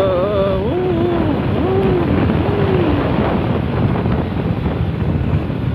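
Motorcycle running on the move, with heavy wind buffeting the microphone. In the first three seconds a voice hums a few wavering notes over the noise.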